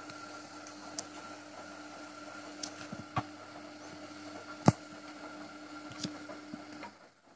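Gorenje WA 50050 front-loading washing machine tumbling a wet load during a cotton 95° wash: a steady motor hum with a faint whine, and a few sharp clicks and knocks from the turning drum. The hum cuts off about seven seconds in as the drum stops.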